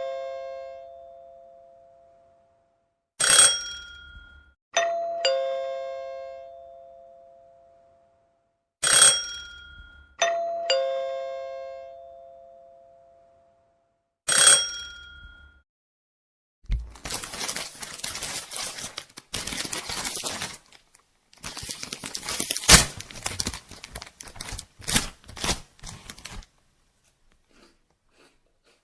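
A ding-dong doorbell chime rings again and again, each ring dying away slowly. A stretch of irregular rattling noise with one sharp knock follows.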